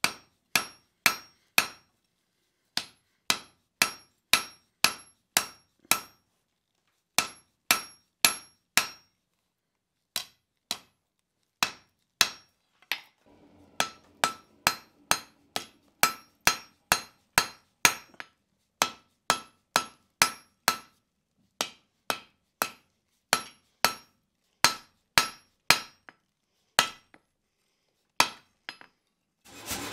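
Hand hammer striking a red-hot 5/8-inch round steel bar on an anvil, each blow ringing. The blows come in runs of about two to three a second with short pauses between heats of work, setting down a shoulder to isolate the mass for the blade.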